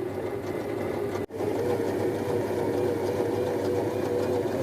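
Steady mechanical hum with a faintly wavering tone, cut off for an instant about a second in and then carrying on unchanged.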